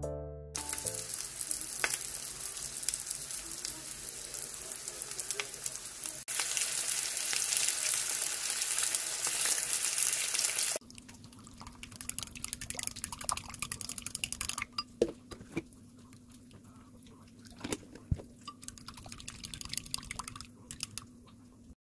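Neobiani (seasoned minced-meat patties) sizzling in oil in a frying pan, a dense crackling hiss. About halfway it gives way to a much quieter sound of a wooden utensil stirring beaten eggs in a glass bowl, with a few light clicks against the glass.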